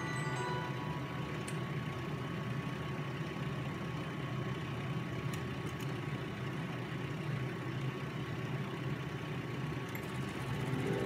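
Steady low hum from an IGT slot machine cabinet, its fan and electronics running. A brief electronic chime sounds right at the start.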